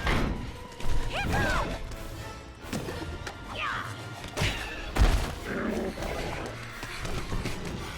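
Film soundtrack of a dragon fight: orchestral music with several heavy thuds and crashes and a few short, high shrieks.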